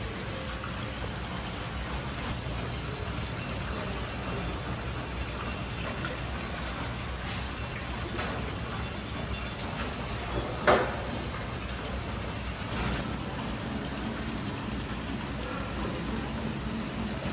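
Steady splashing of water running into and circulating through indoor fishing-pool tanks, with a few short sharp sounds, the loudest about halfway through.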